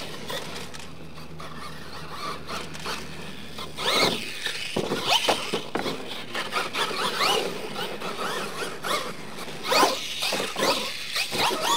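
Radio-controlled monster truck's electric motor whining, rising and falling in pitch as the throttle is worked. There are several sharp thumps from the truck hitting the dirt, around 4 s and 10 s in.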